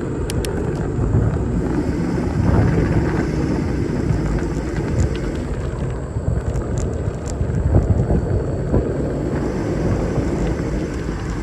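Steady rumble of a bicycle ride along a road: wind buffeting the microphone and tyre and road noise, with a few light ticks near the start and again about halfway through.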